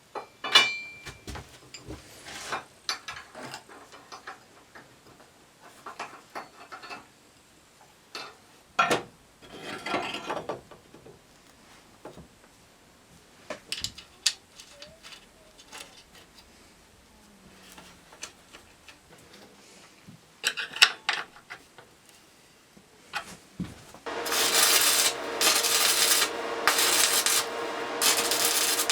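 Hand work on metal parts: scattered knocks, clinks and short scrapes, then, about 24 seconds in, steady rhythmic rasping strokes, about one a second, as of a file or hand saw worked on metal.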